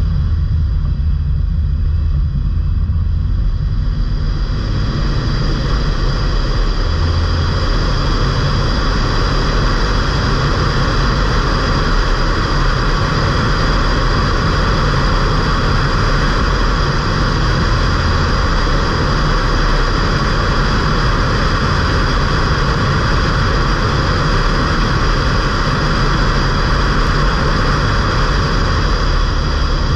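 Ford Fiesta mk8's 1.5 TDCi diesel engine running steadily under way, with a low drone and constant road and wind noise. The rushing noise grows a few seconds in as the car gathers speed.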